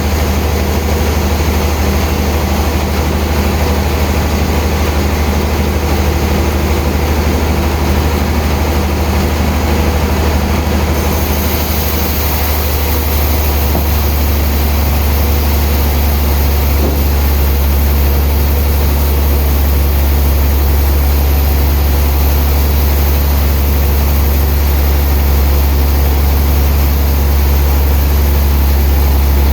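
Heavy sawmill machinery running steadily with a loud low hum. About eleven seconds in, a high hiss joins and the hum shifts slightly.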